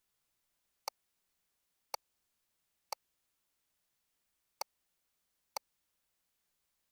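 Five short, sharp clicks against near silence, roughly one a second with a longer pause in the middle. They are the ultrasound scanner's control clicks as the measurement calipers are set for the abdominal circumference.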